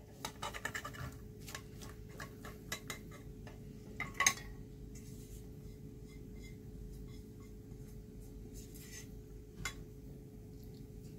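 A frying pan and spatula clinking and scraping as minced beef and vegetable filling is tipped out and spread in a glass baking dish. A quick run of clinks in the first few seconds, the sharpest about four seconds in, then quieter spreading with one more clink near the end.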